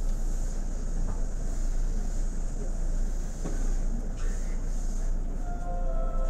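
Seibu 2000 series electric train standing at a station, heard from inside the car: a steady hum and rush of the car's running equipment with faint passenger voices. Near the end a short tune of held notes begins to play.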